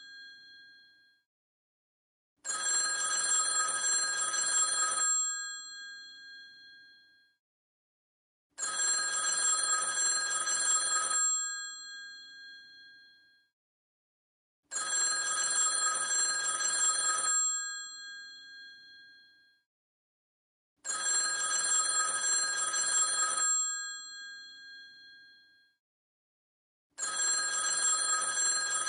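Old telephone's bell ringing in bursts of about two and a half seconds, starting about every six seconds, each ending with a short fading ring.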